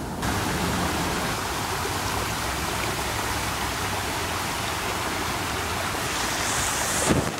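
Shallow creek water running over rock ledges, a steady rushing sound, with a few brief knocks near the end.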